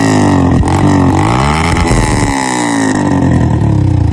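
Single-cylinder motorcycle engine being revved, the throttle blipped so that its pitch rises and falls several times.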